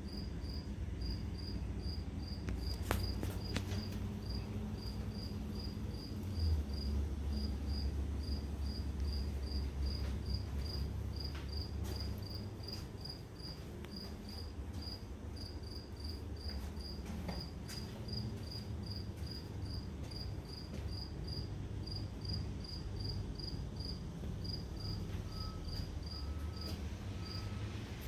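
A cricket chirping steadily, about two to three chirps a second, over a low hum that swells for several seconds in the middle.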